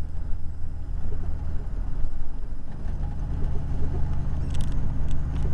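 Truck engine droning steadily with road noise, heard inside the cab while driving; the low tone breaks briefly about two and a half seconds in, then settles again. A few short high clicks near the end.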